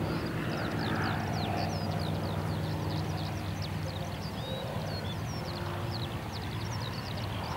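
Avro Anson Mk I's two Armstrong Siddeley Cheetah seven-cylinder radial engines running at low power as it taxis, a steady low drone. Many quick bird chirps sound over it.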